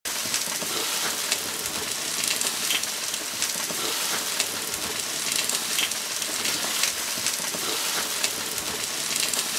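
Meat and peppers sizzling on a gas grill: a steady frying hiss scattered with many small pops and crackles.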